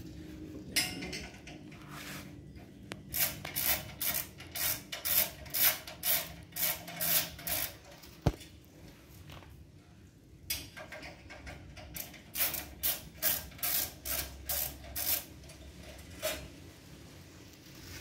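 Screwdriver turning out the screws of a gas water heater's burner cover: a run of short repeated strokes, about two a second, then a pause with one sharp click, then a second run of strokes.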